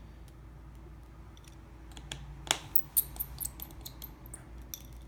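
Small metal tools and screws clicking and tapping on an opened iPhone 6 as its tiny internal screws are taken out: scattered light clicks, with the sharpest about two and a half seconds in and a quick run of clicks just after.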